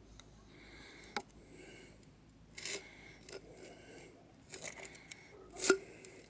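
Thin aluminium drink can, deformed by a firecracker blast, handled and turned over in the hand: scattered scrapes and crinkles of the metal, with a sharp click about a second in and the loudest click near the end.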